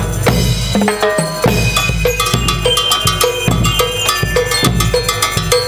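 School marching band (banda de guerra) playing: bass drum and snare drums keep a steady beat of about two to three strokes a second under the ringing notes of bell lyres.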